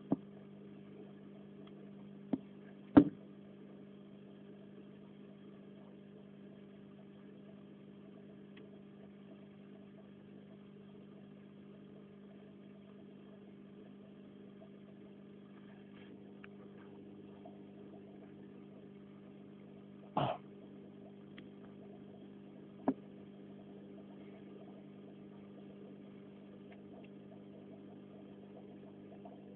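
Steady low electrical hum, with a few sharp clicks over it: the loudest about three seconds in, and a short crackle around twenty seconds in.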